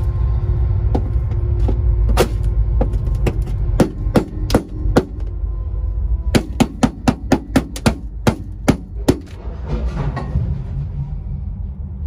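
Sharp, irregular knocks and cracks on a Datsun 240Z's sheet-metal floor pan, as dry-ice-frozen sound-deadening mat is struck and broken loose. The knocks come quickest, about three a second, in the middle, over a steady low rumble.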